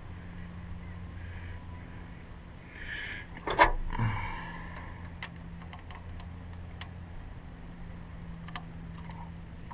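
Hand tools and small metal parts clinking against the engine during injector clamp work, with one sharp metallic knock about three and a half seconds in and a few light ticks after it, over a steady low hum.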